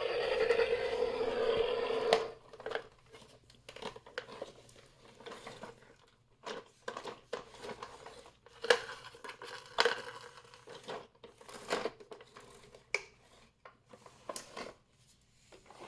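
Hard plastic toy being handled, most likely the VTech Pop-a-Balls Push & Pop Bulldozer and its balls: scattered clicks and knocks of plastic. A steady buzzy sound runs for about the first two seconds, then stops.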